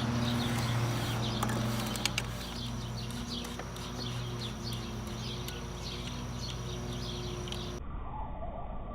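Birds chirping repeatedly, about twice a second, stopping near the end. A steady low hum fades out over the first few seconds, and there are a couple of sharp clicks around two seconds in.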